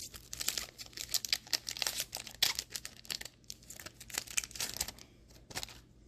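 Wrappers of Pokémon card booster packs crinkling and rustling in quick crackles as a pre-cut pack is opened and the cards are pulled out, thinning out near the end.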